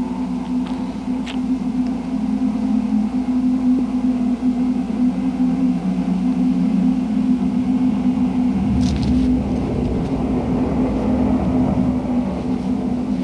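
Suspense underscore of a TV drama: a steady low drone, joined about eight or nine seconds in by a rumbling low swell that builds toward the end.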